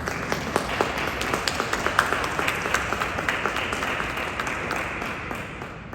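Audience applauding: many hands clapping in a dense patter, dying away near the end.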